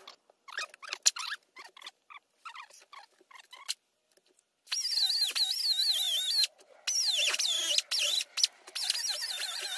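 Small high-speed power carving tool whining, its pitch wavering and dipping as it bites into the wood. Before it, scattered clicks and scrapes; the whine starts about halfway through and breaks off briefly near the end.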